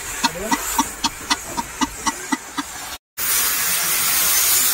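A run of short, sharp clicks, about four a second, then a steady, louder hiss from an oxy-fuel cutting torch flame cutting into a rusty steel pipe, starting about three seconds in.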